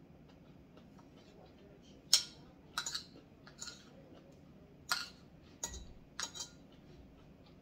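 Metal cutlery clinking against a plate or bowl while eating: about six sharp clinks starting about two seconds in, the first the loudest.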